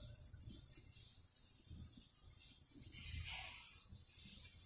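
A cloth duster wiping chalk off a blackboard: faint, repeated rubbing strokes.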